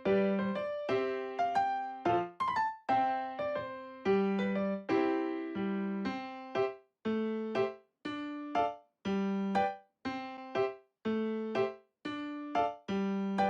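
Background piano music: single struck notes and chords in a steady, unhurried rhythm, each note dying away.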